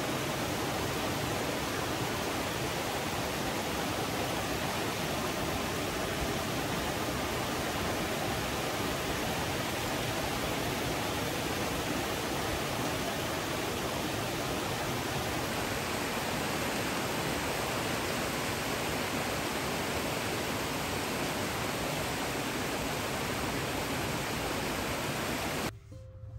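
Mountain stream rushing steadily over a small rocky cascade, a constant even roar of water that cuts off suddenly near the end.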